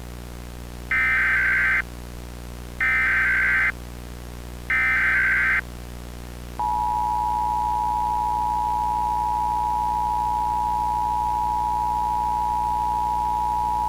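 Emergency Alert System tones: three short bursts of the SAME digital header screech, each about a second long and a second apart, then the steady two-tone EAS attention signal starting about six and a half seconds in and holding on, the signal that an emergency message is about to be read.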